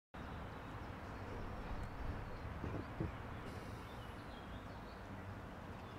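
Outdoor ambience: a steady low rumble of background noise with faint bird chirps, and a brief thump about three seconds in.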